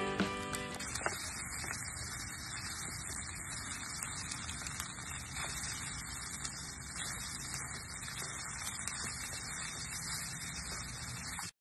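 Background music fades out in the first second, leaving a steady low hiss and rumble with a few faint scrapes of a wooden spatula stirring rice in a pan. The sound cuts off suddenly near the end.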